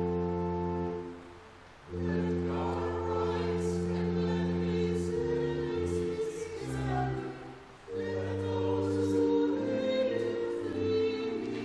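Small church choir singing in harmony over organ accompaniment, with the organ holding long sustained chords and deep pedal notes. The music breaks off briefly between phrases, about two seconds in and again about eight seconds in.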